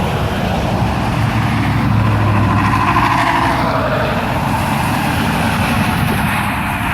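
Kenworth W900 semi truck driving past close by: diesel engine and tyre noise swelling to its loudest about two to three seconds in, with a tone that drops in pitch as it goes by.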